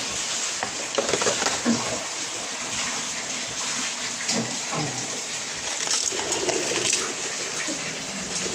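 Water running and splashing steadily, with a few short knocks in the first two seconds.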